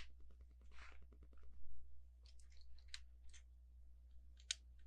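Faint clicks and rustles of plastic LEGO pieces being handled and pressed together, with a sharper click near the end.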